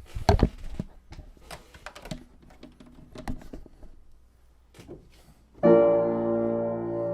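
Scattered light knocks and clicks, then a piano chord struck about two-thirds of the way in and left ringing.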